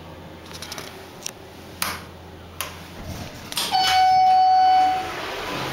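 Schindler elevator car's electronic signal: one steady beep, held a little over a second, about three and a half seconds in, after a few faint clicks.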